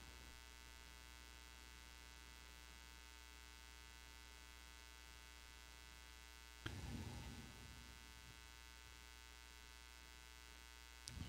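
Near silence filled by a steady electrical mains hum. A short thump comes about two-thirds of the way in, and a click comes near the end.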